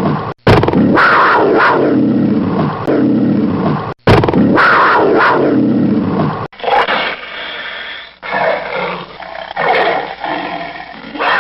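Loud animal calls, repeated calls that slide down in pitch, in several clips joined by abrupt cuts.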